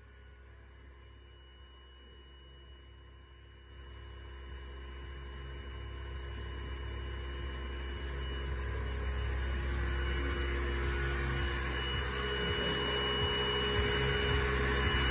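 Vibratory stress relief exciter motor running a welded steel frame, a steady machine hum with a strong low drone and several fixed higher tones, growing steadily louder as the run builds up.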